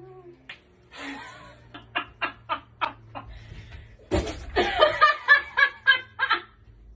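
A woman laughing in short rhythmic bursts, about four a second. A sudden thump comes about four seconds in, followed by louder, more intense laughter.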